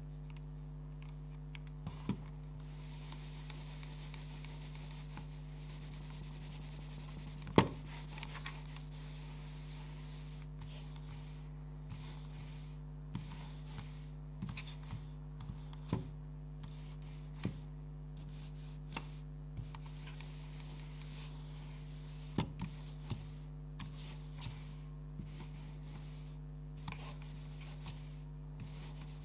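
A Logitech G Pro Wireless mouse on freshly fitted Tiger Arc PTFE glides sliding back and forth across a mousepad, a soft rubbing hiss with scattered sharp clicks and knocks, the loudest about a third of the way in. A steady low hum sits under it throughout.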